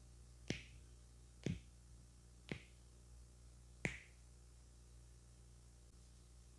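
Four sharp finger snaps, roughly a second apart, with the last a little later than the others.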